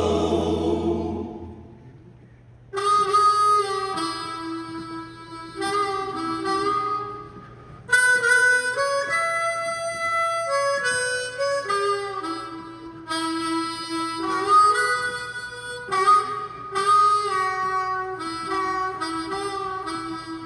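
Harmonica playing solo in short phrases of two- and three-note chords, starting about three seconds in after a held sung note fades away.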